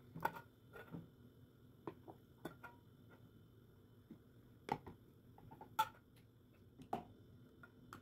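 Glass jars with metal screw lids set down one after another on a cloth in a pot: a scattering of light knocks and clinks as they touch down and bump one another, the sharpest a little before 5 s and near 6 s.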